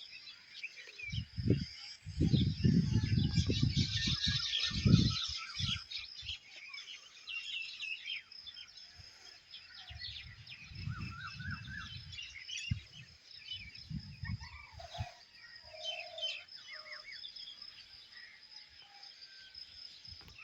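Many birds chirping and trilling together, with a steady high-pitched note underneath. Low rumbling gusts of wind hit the microphone from about a second in to six seconds, and again from about ten to fifteen seconds in.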